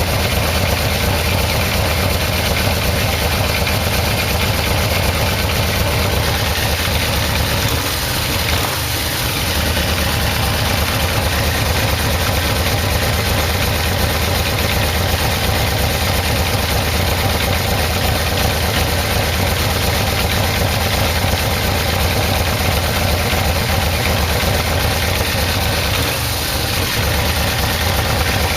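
Yamaha VMax's carbureted V4 motorcycle engine idling steadily, warm, while its carburettors are being synchronized; the note dips briefly twice.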